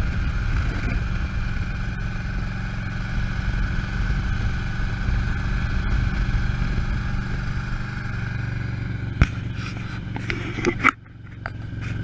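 Harley-Davidson Ultra Classic's V-twin engine running steadily at cruising speed, with wind and road noise, recorded on the moving bike. Near the end come a few sharp clicks and knocks, then the sound briefly drops away.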